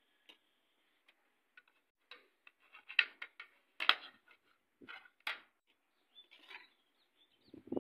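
Metal serving spoon clinking and scraping against a steel cooking pot and a plate as rice is dished out: a string of short irregular clicks and knocks, the loudest about three and four seconds in.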